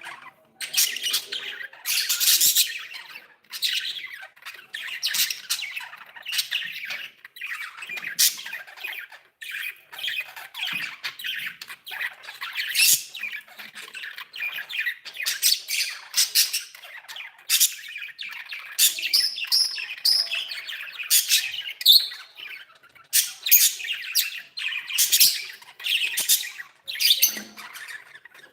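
Pet budgerigars chattering: a dense, continuous run of chirps, warbles and squawks from several birds.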